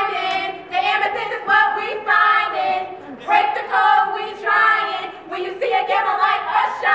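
Several women's voices singing together in short held phrases, with brief breaks between them.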